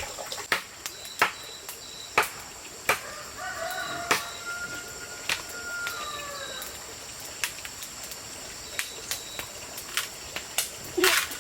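A rooster crows once, starting about three seconds in and lasting about three seconds. Sharp clicks or knocks come every second or so, some louder than the crow, over a steady high insect drone.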